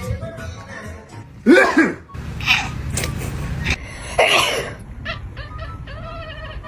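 A person sneezing loudly several times in quick succession.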